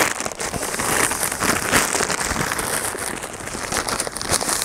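Thin black plastic bag crinkling and rustling steadily as it is handled and a cardboard box is pulled out of it.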